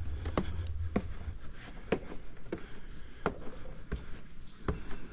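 Footsteps of a person walking at an even pace, about one and a half steps a second, each step a sharp tap. A low rumble underneath stops about a second in.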